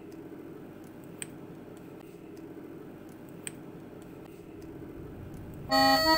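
Low, quiet ambient music drone with a few faint clicks and crackles. Near the end, loud music with long held tones cuts in abruptly.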